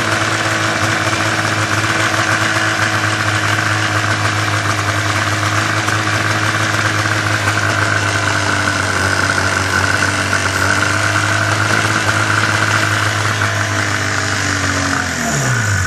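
Arctic Cat El Tigre snowmobile's two-stroke engine idling high, around 3,000 rpm, while starting fluid is sprayed around its carb boots and crank seals to find a vacuum leak; the sled runs lean, and the high idle is a symptom of leaking carb boots or crank seals. Near the end the engine winds down in pitch.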